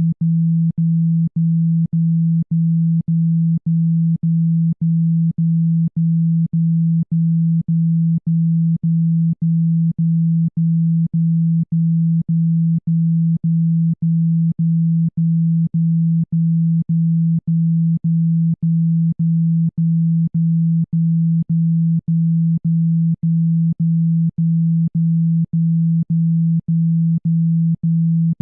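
Speaker-cleaning tone: a loud, low, pure electronic tone pulsed on and off about twice a second, played to shake water and dust out of a phone speaker.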